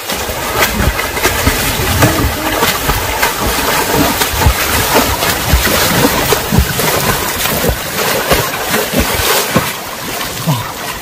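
River water splashing and churning close to the microphone as someone swims against the current, with many quick splashes and gurgles throughout.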